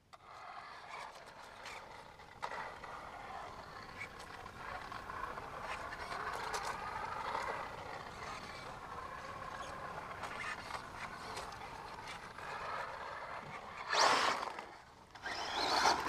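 Electric RC buggy running on a dirt track, its motor whine rising and falling in pitch. About two seconds before the end it passes close by with a loud sudden rush, then comes on loud again.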